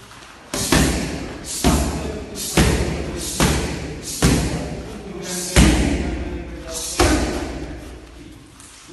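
Punches and kicks smacking into Thai kick pads: about seven heavy thuds at uneven intervals, each echoing briefly.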